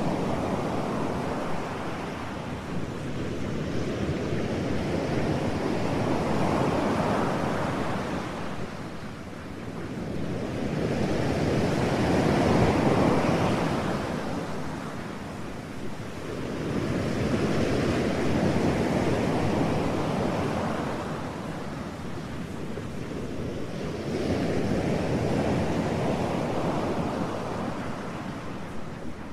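A rushing noise like surf washing in, swelling and subsiding in slow waves about every six seconds.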